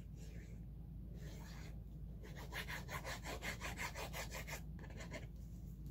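Metal fine-tip applicator of a glue bottle scratching faintly over cardstock. From about two seconds in it switches to rapid back-and-forth zigzag strokes, about six a second, for a couple of seconds.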